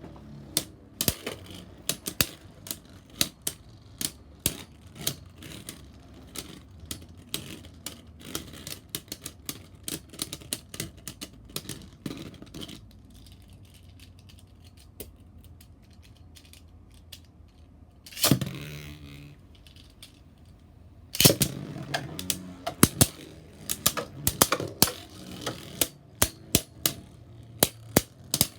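Spinning Beyblade Burst tops clashing in a plastic stadium: a long run of sharp, irregular plastic clacks. About two-thirds of the way through comes a short rushing burst, followed by a dense flurry of loud clacks.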